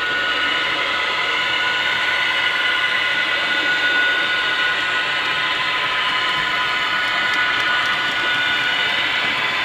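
Sound-equipped model of a Union Pacific 'Veranda' gas-turbine locomotive running, its sound system giving a steady high turbine whine over the running noise of model trains on the track.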